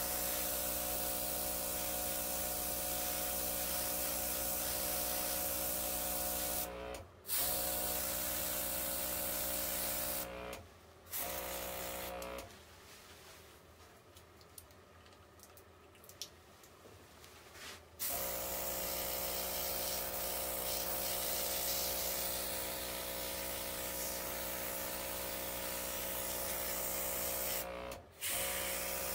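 Airbrush kit's small compressor running with a steady hum and a hiss of air spraying temporary ink through the airbrush. It cuts out briefly twice, falls quiet for about six seconds in the middle, then runs again, with one more short break near the end.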